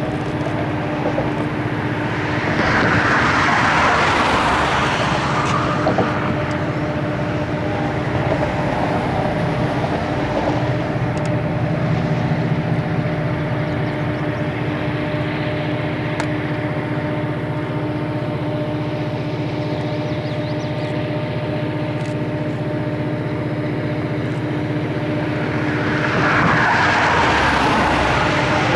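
Diesel locomotive of a slow-moving iron-ore freight train running, a steady engine hum with rumble, swelling a little louder near the end.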